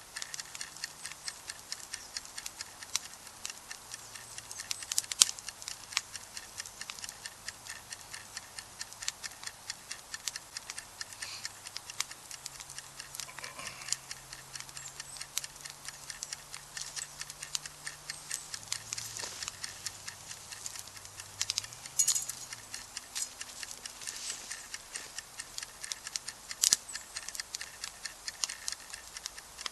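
Wood campfire crackling: a steady patter of small snaps with a few louder pops.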